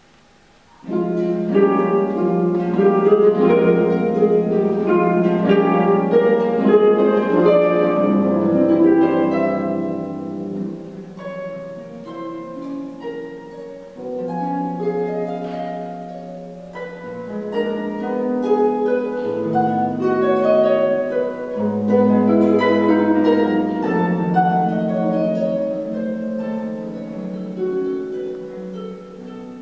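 Solo concert harp playing: dense runs and arpeggios of plucked, ringing notes across the range, coming in about a second in after a brief hush, with a softer stretch in the middle before building again.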